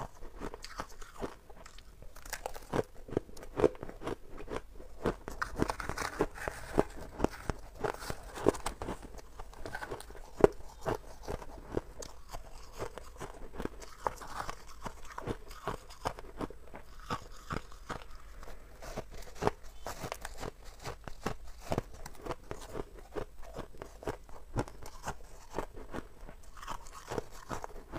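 Crunching and biting of soft, snowy freezer frost ice being eaten, picked up close by a clip-on microphone: dense, irregular crackly crunches that keep going throughout.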